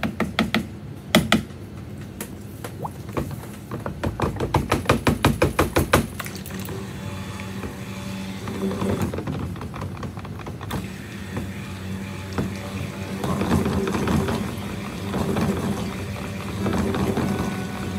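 Background music. It opens with a quick run of sharp clicks, coming faster to about five a second before stopping about six seconds in.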